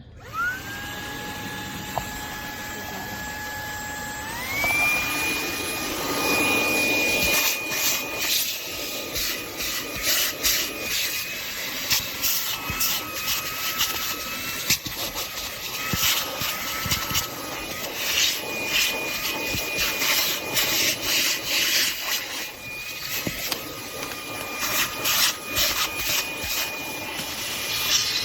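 Fanttik V8 Apex cordless handheld vacuum switching on with a rising whine. About four seconds in it steps up to a higher-pitched, louder whine as it goes to its stronger suction mode. It then runs steadily with irregular scratchy crackling as the nozzle rubs over a surface and picks up debris.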